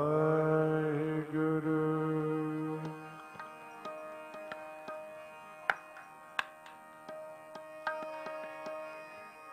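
Kirtan accompaniment of harmonium and tabla: a long held note for about three seconds, then the harmonium continuing softly under a few sharp tabla strokes as the music winds down.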